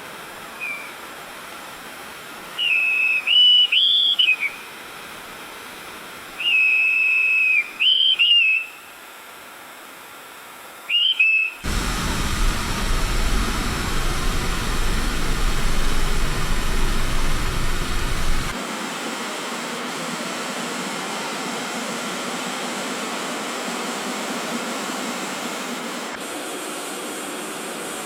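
Street ambience: a whistle is blown in three groups of short, high blasts over a low background hiss. About a third of the way in it cuts abruptly to a steady wash of traffic noise with a low rumble. The rumble drops out suddenly a few seconds later, leaving a steadier, quieter hiss of street noise.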